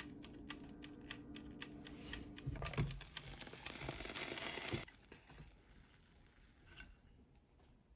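Rapid keyboard typing, about six clicks a second, then a hissing rush of about two seconds that starts about two and a half seconds in and cuts off suddenly; a few faint ticks follow.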